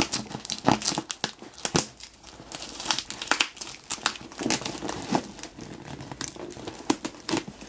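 Brown packing tape on a cardboard parcel crinkling and tearing as a key is dragged through it to slit the box open, with irregular sharp crackles.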